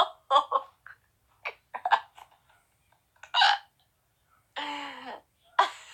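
A woman hiccuping over and over: short, sudden catches in the throat at uneven intervals, with a short vocal sound falling in pitch near the end. They are persistent hiccups she can't stop.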